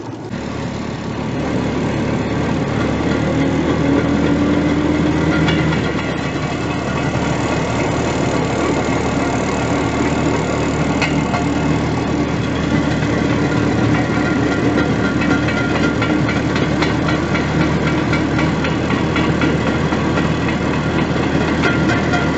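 Motorized rail draisine running along the track: a steady engine drone mixed with the rumble of its small steel wheels rolling on the rails. A few sharp clicks come through here and there.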